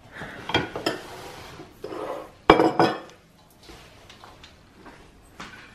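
Kitchen bowls handled on a countertop: a few light knocks, a short scrape about two seconds in, then a loud clank with a brief metallic ring about two and a half seconds in, followed by faint ticks.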